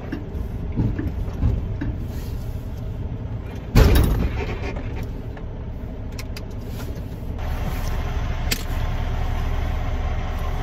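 Semi truck idling with a steady low rumble. About four seconds in there is a sudden loud burst of noise that dies away within a second. Wind noise rises about seven seconds in.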